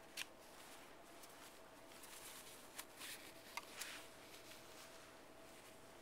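Quiet handling noise from small cosmetic items, a tint tube and cotton swabs: a few light clicks and short rustles, clustered in the middle, over a faint steady hum.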